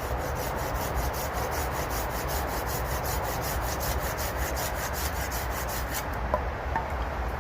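Silky Gomboy 240 mm curved pull saw cutting through a stick in quick, even strokes, which stop about six seconds in.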